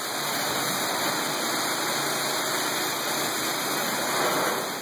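Water spraying from a hose onto a car's bodywork during a rinse, a steady hiss of spray that eases off near the end.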